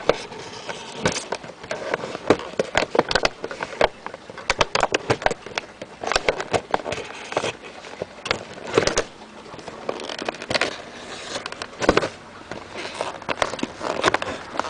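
Action-figure box packaging being handled and pulled open by hand: an irregular run of crackles, clicks and short scrapes.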